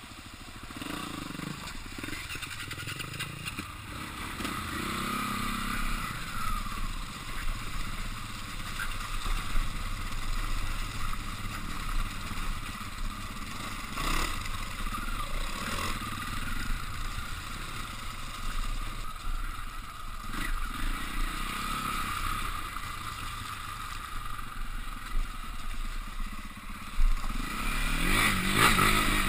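KTM off-road motorcycle engine running as the bike is ridden over rough, muddy ground, rising and falling with the throttle. It revs harder near the end.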